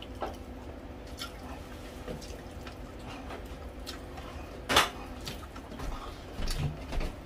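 Close-miked eating sounds: chewing with scattered wet mouth clicks and smacks, one louder click about five seconds in.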